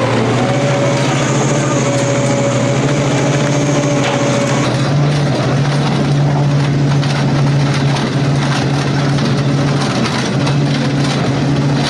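Industrial twin-shaft shredder running, its toothed rotors crunching and tearing mixed scrap metal over a steady drive hum. A high whine in the machine cuts off about five seconds in as the hopper empties and the rotors keep turning.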